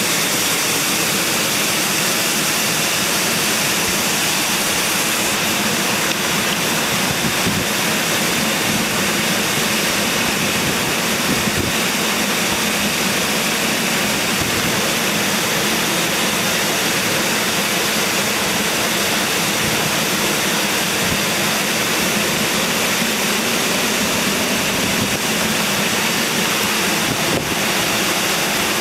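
Mountain stream water rushing steadily over rocks, a loud unbroken white-noise roar.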